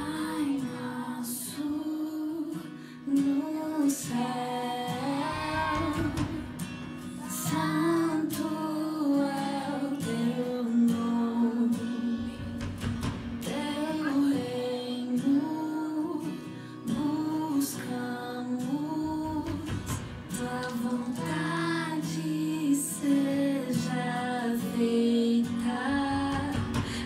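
Children's choir singing a worship song over instrumental accompaniment with guitar and a steady beat.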